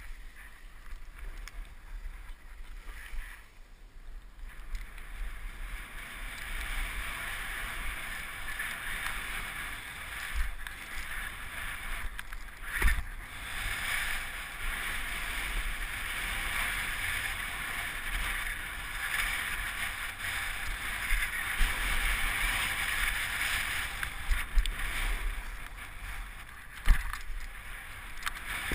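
Skis sliding and turning on packed snow: a steady hiss from the bases and edges that builds a few seconds in and surges through the turns, with low wind rumble on a helmet-mounted camera and a couple of sharp knocks.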